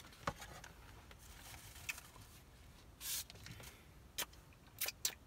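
Faint handling sounds from a takeout container and disposable wooden chopsticks: a few light clicks and taps, with a short rustle about three seconds in and two quick clicks near the end.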